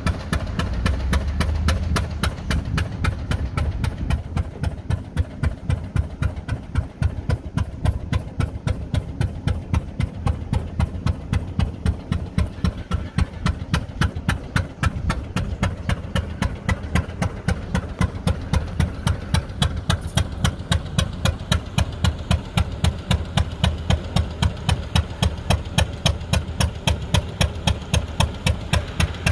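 Arrow C-96 single-cylinder gas engine running steadily on a Parkersburg 142 oil-well pumping unit, its exhaust popping in an even beat of about three firings a second over a low rumble.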